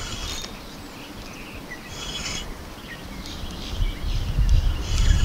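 Spinning fishing reel being cranked in short turns, each a brief whirring, clicking burst, while a hooked fish is played carefully on the line. A low rumble builds near the end.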